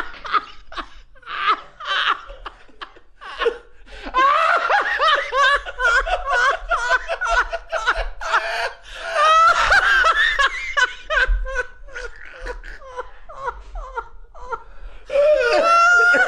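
Two men laughing hard, in uncontrolled bursts: short bouts at first, a long loud stretch in the middle, then loud again near the end.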